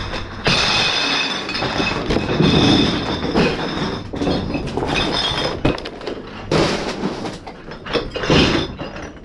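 Bags of empty bottles being heaved into a truck's cargo box: plastic bags rustling and the bottles inside clinking and clattering, with a few heavier thuds as bags land.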